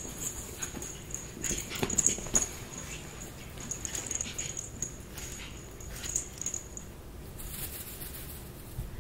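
Pug puppy playing around its dog bed: small whimpering noises with scattered thumps and rustles, the thumps clustered a couple of seconds in. A steady high-pitched whine runs underneath.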